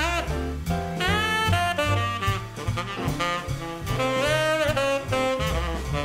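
Background jazz music: a saxophone plays a melody over brass, bass and drums.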